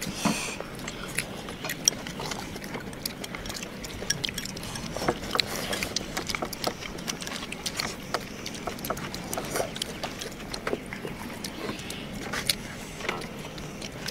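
Eating at a table: chopsticks clicking and scraping against stainless steel bowls, with chewing, in many light, irregular clicks.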